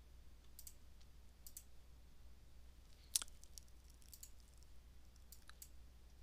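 Faint clicks of a computer mouse and keyboard as numbers are entered into a web form: a handful of short clicks, several in close pairs, with one sharper click about three seconds in, over a low steady hum.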